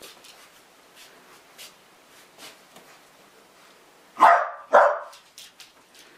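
A small dog barking twice in quick succession, two short sharp barks about half a second apart, about four seconds in.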